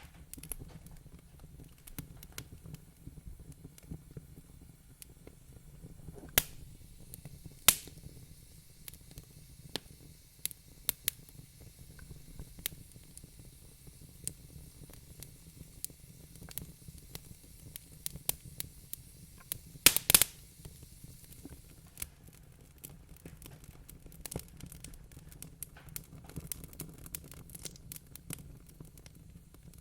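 Wood fire crackling in a fireplace: irregular sharp pops and snaps over a low steady rumble, with two louder pops about six and eight seconds in and a quick burst of the loudest pops about twenty seconds in.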